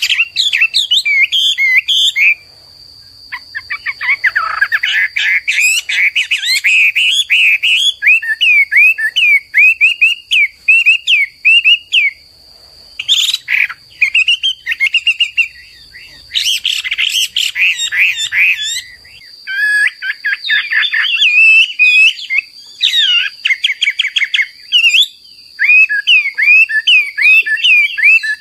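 Chinese hwamei (Garrulax canorus) singing: rapid runs of repeated slurred whistled notes, changing phrase every few seconds with brief pauses between phrases. A steady thin high tone runs beneath the song.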